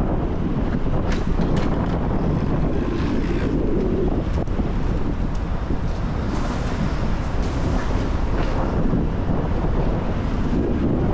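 Steady low rumble of a car driving through a rainstorm, road and tyre noise mixed with wind buffeting the microphone.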